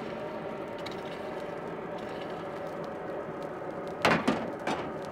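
Forge blower driving air into the charcoal fire, a steady hum with a hiss, while three loud knocks come about four seconds in.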